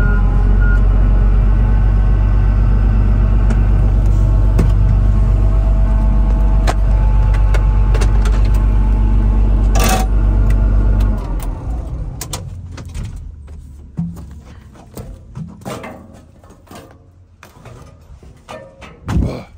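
Large diesel engine of heavy work equipment running steadily at idle, then shut off about eleven seconds in and winding down. After it stops, scattered light clicks and knocks, with one louder knock near the end.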